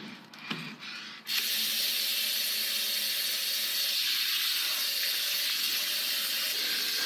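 Bathroom tap turned on about a second in, water running steadily into a ceramic basin as an even hiss. A few small clicks and rustles of handling before it starts.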